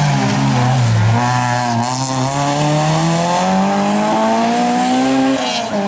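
Honda Civic rally car's engine passing close by. The note falls for about a second as it comes through the bend, then rises steadily for about four seconds under hard acceleration as it pulls away, and drops sharply near the end.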